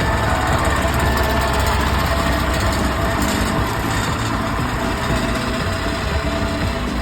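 Steady rumble of a running vehicle, even in level throughout.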